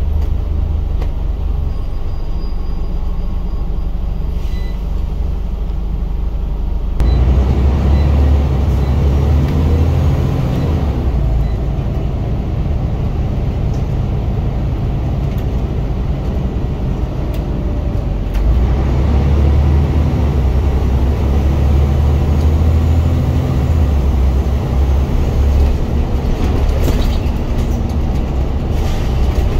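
Scania bus diesel engine heard from inside the cabin, running steadily and fairly quietly, then driven hard from about seven seconds in, its note rising as it pulls. A second surge of power and rising engine note comes about eighteen seconds in, as the engine is thrashed through the gears.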